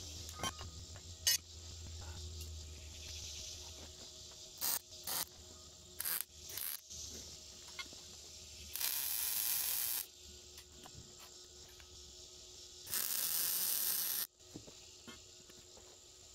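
Steel tube pieces knocking and clinking as they are handled and set in place, then two short welds from a wire-feed welder, each about a second and a half of steady hiss that starts and stops sharply, about two-thirds of the way through and again near the end.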